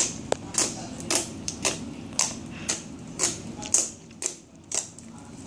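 Slime being worked in the hands, giving a run of sharp clicking pops, about two a second.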